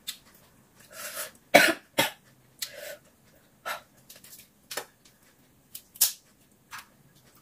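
Shrimp shells being cracked and peeled by hand: an irregular run of short, sharp crackles and clicks, with one louder, fuller burst about one and a half seconds in.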